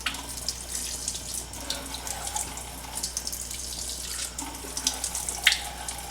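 Bathroom sink tap running, with water splashing in the basin and a few sharp splashes or clicks.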